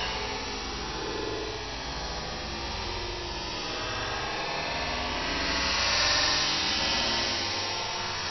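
Steady droning hum with hiss and no sharp bangs, swelling slightly about six seconds in: the stretched, slowed-down soundtrack of slow-motion video playback.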